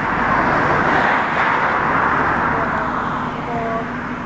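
A road vehicle passing close by: a rush of tyre and road noise that swells over the first second or so, then fades away towards the end.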